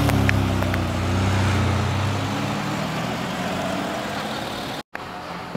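Ferrari 612 Scaglietti's V12 engine and exhaust as the car pulls away at low speed, the note easing slightly in pitch and then fading as it drives off.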